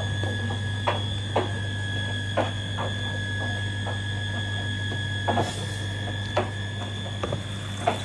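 Miele Professional washing machine running in the main wash of a 95 °C cottons program: a steady motor hum with a thin high whine, and a scattered series of sharp plastic clicks and knocks.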